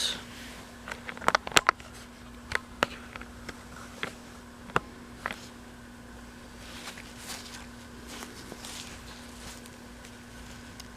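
Fishing tackle and its packaging being handled: scattered sharp clicks and rustling through the first five seconds or so, then softer rustling, over a faint steady hum.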